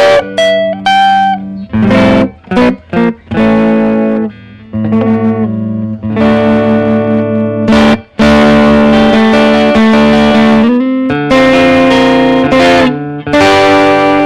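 Telecaster-style electric guitar with Guitar Fetish Neovin noiseless pickups, played through an amp on the front (neck) pickup, giving a nice fat sound. Chords are strummed and left to ring, with a run of short choppy chords in the first few seconds and longer sustained chords from about five seconds on.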